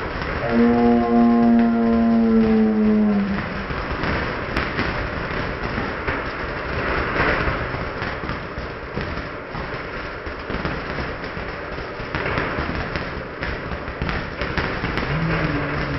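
Ground fountain firework spraying and crackling, played back in slow motion so its hiss and crackles are stretched out and lowered into a dense rumbling rush. A steady drawn-out tone sounds over it for the first few seconds.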